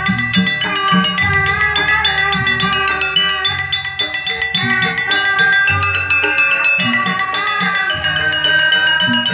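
Javanese gamelan playing a jaranan campursari piece: saron metallophones struck with mallets in a steady ringing pattern, over kendang drum and deep bass notes, played loud through a PA system with subwoofers.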